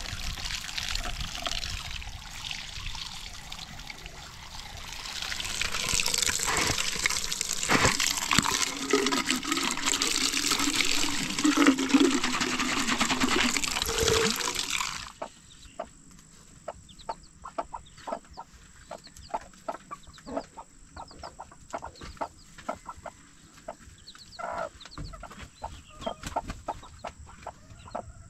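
Water running from a hose, splashing over a plastic chicken feeder and filling a plastic poultry waterer. It stops abruptly about fifteen seconds in and is followed by a hen clucking softly and chicks peeping.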